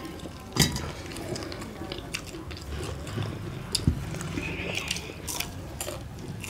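Close-up eating sounds: chewing and biting of roast chicken and fried sel roti, with hands pulling the chicken apart. A few sharp clicks and knocks are scattered through it, the loudest about half a second in.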